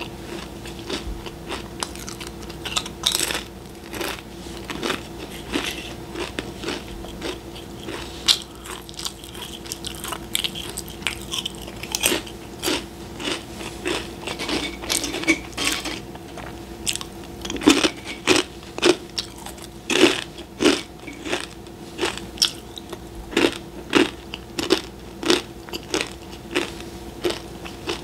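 Crisp snacks being bitten and chewed close to a microphone: a steady run of loud, irregular crunches, with a faint steady hum underneath.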